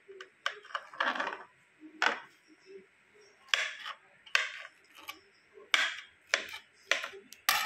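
Kitchen knife cutting through soft peeled mango flesh and knocking on the cutting board, about ten cuts at uneven intervals.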